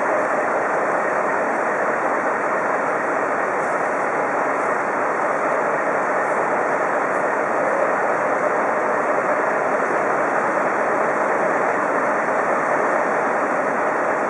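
Heavy fire-brigade truck's diesel engine running, a steady, unchanging mechanical noise with a faint constant hum in it.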